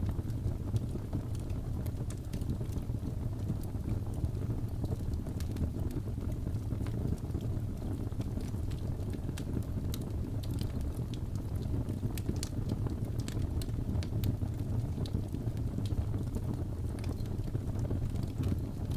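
Fireplace ambience: a wood fire burning with a steady low rumble and irregular sharp crackles and pops.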